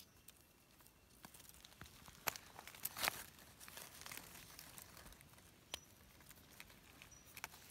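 Dry leaf litter crackling and rustling under hands picking mushrooms off the forest floor, with scattered small snaps, the sharpest a little after two and three seconds in.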